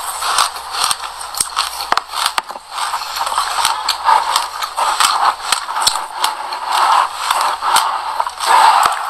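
Close-up crunching and crackling of black sesame seeds: a seed-coated piece of food bitten and chewed, then pressed into a tub of loose seeds, with many sharp crackles throughout.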